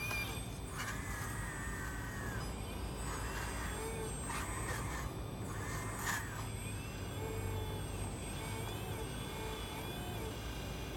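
Radio-controlled hydraulic excavator's electric pump whining in several stretches of about a second each as the arm and bucket move, with a few short clicks, over a steady low hum.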